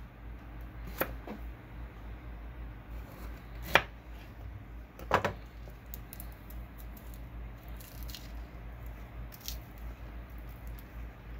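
Mikihisa double-bevel folding knife slicing a jalapeño pepper on a cutting board, with a few sharp knocks of blade and knife on the board, the loudest about four seconds in and a quick double knock a second later. Fainter ticks and rubbing follow as the pepper pieces are handled.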